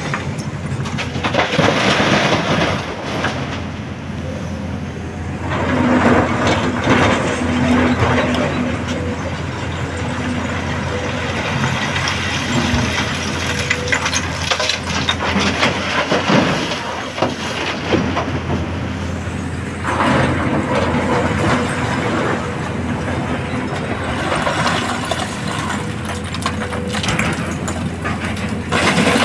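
Diesel engine and hydraulics of a SANY crawler excavator working steadily while it loads broken quarry rock into a tipper truck. Several loud spells of rock clattering and scraping as the bucket digs into the pile and dumps stone into the truck's steel body.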